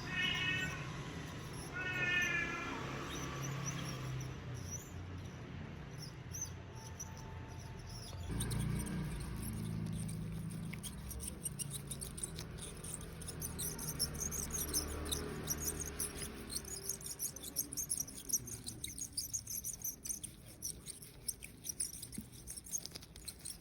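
Bicycle wheel's freehub (cassette body) bearing squeaking in short bird-like chirps as the wheel turns, the sign of a worn freehub bearing. From about a third of the way in a fast, high ticking takes over.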